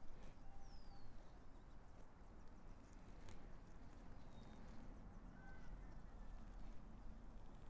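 Faint handling sounds: soft rustling and a few light knocks as gloved hands work a rooted succulent into potting soil in a terracotta pot. A few thin bird chirps sound faintly in the background, one a short falling whistle about half a second in.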